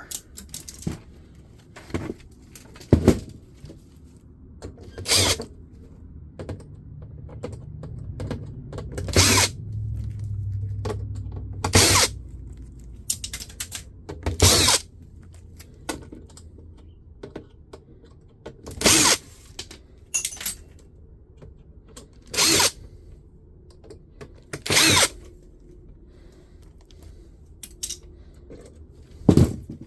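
Fax machine being dismantled with tools for scrap: a string of sharp clacks and short rattles of metal and plastic parts every two to four seconds, with a low hum swelling between about 7 and 12 seconds in.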